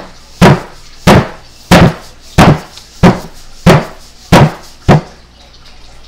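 A paper sugar bag packed with baby powder being banged down on a table, eight loud thuds at an even pace of about three every two seconds, stopping about five seconds in. The pounding packs the powder down so that the bag goes hard.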